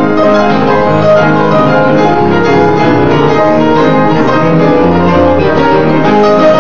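Ragtime played on an upright piano, a busy run of notes over a steady bass.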